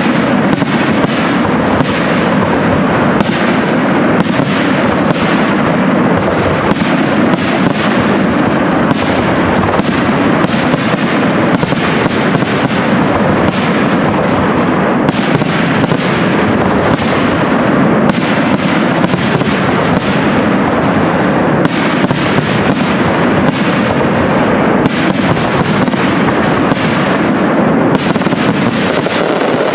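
Aerial firework shells bursting in a dense, unbroken barrage, with several sharp bangs a second overlapping and no pause between them.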